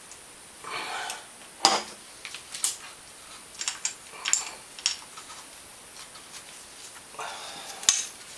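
Metal hand tools clinking and scraping against the engine: a socket wrench with an extension being fitted to and worked on the cylinder-to-crankcase bolts. Irregular sharp clicks, the loudest a little under two seconds in and near the end, with short scrapes about a second in and just after seven seconds.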